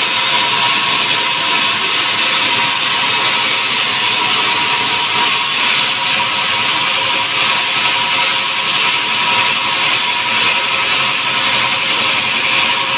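Sawmill band saw running and cutting lengthwise through a log: a loud, steady noise with a steady high whine.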